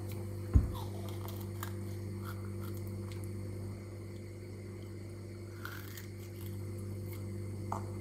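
A steady low hum, with one dull thump about half a second in and a few faint small clicks.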